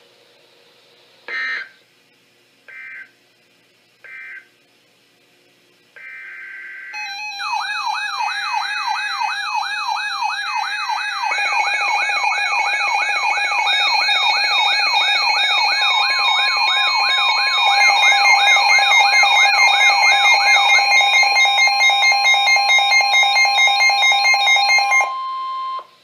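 NOAA weather alert radios receiving a warning: three short bursts of the SAME digital alert header, then several receivers sounding their alarms at once, a fast warbling siren layered with pulsing high beeps and a steady alert tone, which all cut off about a second before the end.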